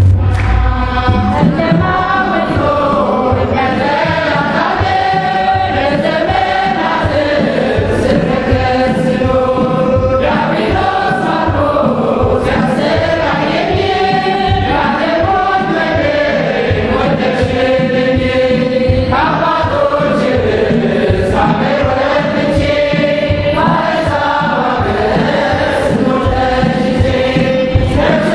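Ethiopian Orthodox mezmur: a mixed choir of men and women singing a hymn together, over a steady beat of hand claps.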